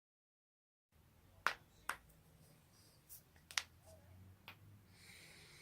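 Neck joints cracking: a series of sharp, dry pops. Two loud ones come close together about a second and a half in, another loud one comes past the middle, and fainter pops fall between, with a faint rustle near the end.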